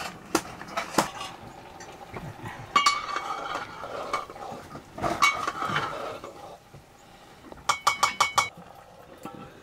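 Metal ladle clinking and scraping against a round metal cooking pot as a curry is stirred over a wood fire. The clinks are scattered, the loudest a little under three seconds in and about five seconds in, and near the end comes a quick run of about six taps, like a ladle knocked on the pot's rim.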